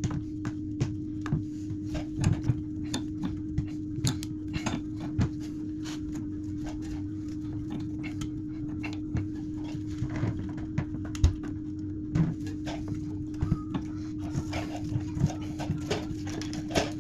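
Small clicks and knocks of hands handling the supply pipe connection under a toilet cistern, as a fibre washer and the pipe connector are fitted to the ball valve tail, over a steady hum.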